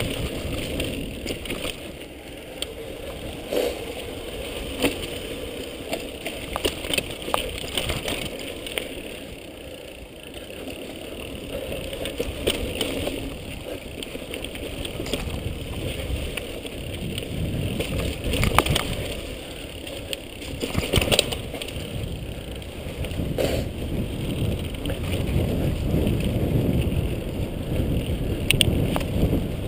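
Mountain bike riding fast down a dirt forest singletrack: a continuous rumble of tyres on the trail and air rushing past, with the bike rattling and knocking over bumps, sharpest a couple of times in the second half.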